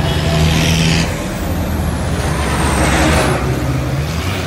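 Diesel tractor engines running steadily as tractors drive past, with a rushing swell of noise in the first second and a bigger one about three seconds in.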